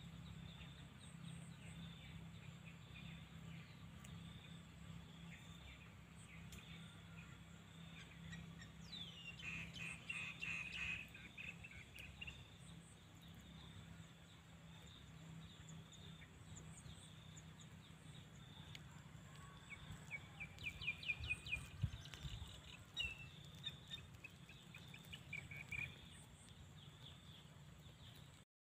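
Faint open-air ambience with birds calling: bursts of quick chirping notes about ten seconds in and again from about twenty to twenty-six seconds, over a steady low hum.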